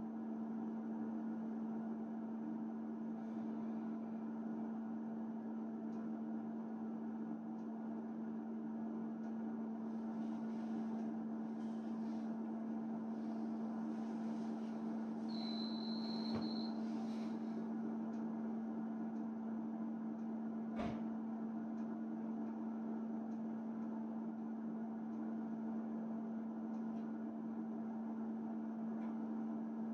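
Steady electric hum of a stopped electric train's onboard equipment, heard from inside the carriage. A brief high tone sounds about halfway through, and a single click a few seconds later.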